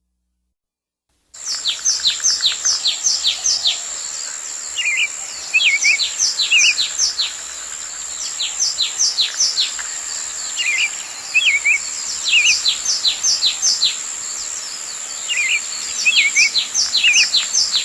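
Birds chirping after a moment of silence: runs of quick downward-sweeping chirps come in bursts, with a few warbling calls in between. A steady high-pitched whine continues behind them.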